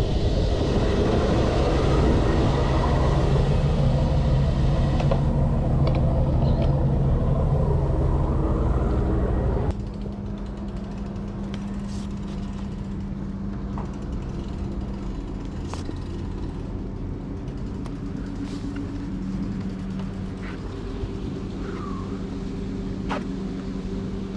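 An engine running steadily with a deep hum. About ten seconds in the sound drops abruptly to a quieter, steady engine hum with a few faint clicks.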